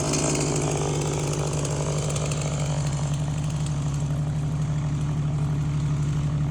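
An engine idling steadily, with an even hum and no revving.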